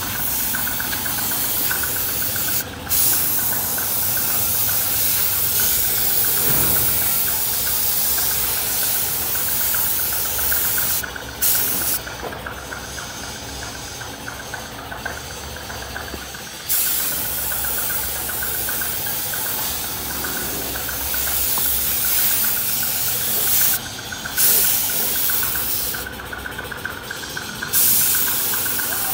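Compressed-air paint spray gun hissing steadily as it sprays paint onto a scooter's front mudguard. The hiss stops briefly several times as the trigger is let off. Under it, a steady motor hum from the air compressor feeding the hose.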